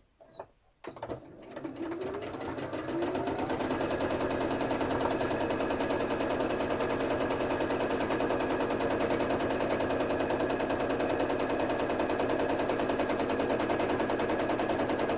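Sewing machine doing free-motion stitching. After a couple of light clicks, the motor starts about a second in and speeds up, then runs on at a fast, steady stitching rhythm.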